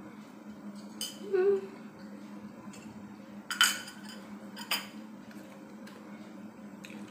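Metal spoon clinking against a ceramic plate: a few sharp clinks with a short ring, the loudest two about a second apart near the middle, over a steady low hum.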